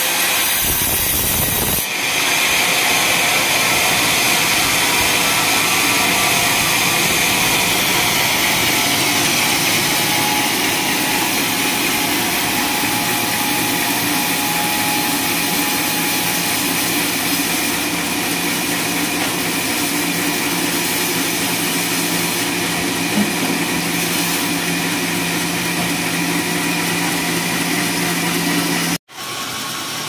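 Sawmill band saw running and cutting lengthwise through a coconut-palm (glugu) log: a steady, loud, noisy whir with faint tones in it. Near the end it cuts off abruptly and a quieter machine hum follows.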